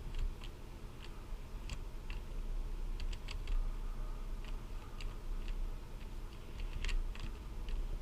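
Plastic YJ Guanlong speed cube being turned through an OLL algorithm: a run of quick, irregular clicks as the layers are turned.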